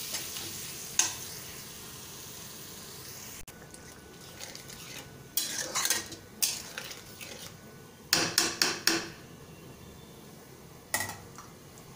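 A metal spatula stirring and scraping against a metal kadai of curry masala that has just been thinned with water, in short groups of quick scrapes. A faint frying hiss fades away over the first few seconds.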